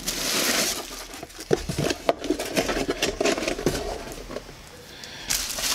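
Cardboard box being handled and a cook kit in a mesh netting pouch slid out of it: scraping and rustling of cardboard and netting with scattered light knocks, and a longer scrape in the first second and another near the end.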